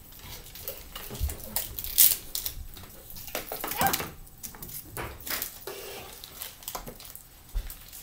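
Things being moved around inside an open refrigerator: scattered knocks, clicks and plastic rattles, with one sharp knock about two seconds in.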